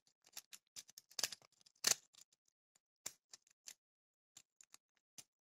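Faint, irregular clicks and ticks of a two-tipped mech tickler pick working the pins inside a 50 mm FAI by VIRO brass padlock, picking and raking mixed. A couple of slightly louder clicks come in the first two seconds.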